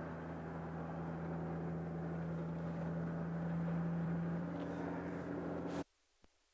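A car's engine runs with a steady low drone under background noise, then cuts off abruptly near the end to near silence.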